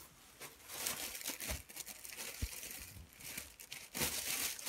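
Thin plastic grocery bags rustling and crinkling as they are handled and items are pulled out of them. There are a couple of soft low knocks partway through.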